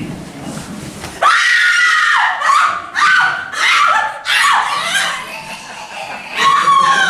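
Loud, high-pitched screaming from about a second in, several screams in a row, each sliding slightly down in pitch, with the last one near the end.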